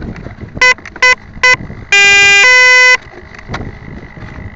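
Electronic speed controller beeping through the Turnigy 3648 brushless motor: three short beeps, then a longer tone that steps up in pitch halfway through. This is the startup and arming signal an RC plane's ESC gives when its battery is connected. A faint steady high whine runs underneath.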